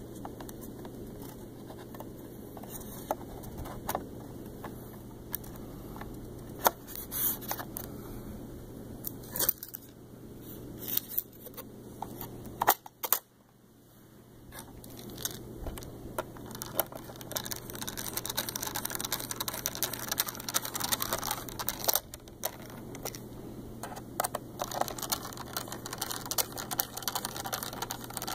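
Plastic clicks, taps and scrapes of a Toshiba Portégé laptop being handled and put back together, scattered at first and denser in the second half, over a steady low hum.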